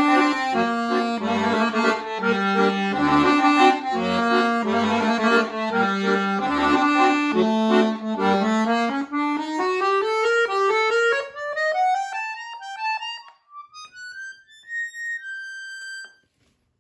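Chromatic button accordion playing chords over a pulsing bass. About halfway through the bass stops and a run of single notes climbs steadily higher, ending on a held high note that closes the piece.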